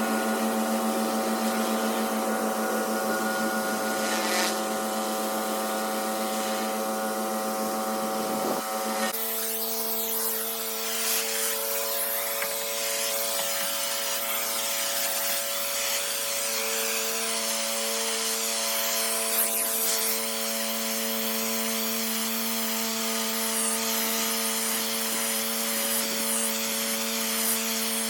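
Pressure washer running steadily while its water jet sprays a concrete driveway, a hiss over the machine's steady hum. About nine seconds in, the machine's pitch shifts and the spray hiss grows stronger.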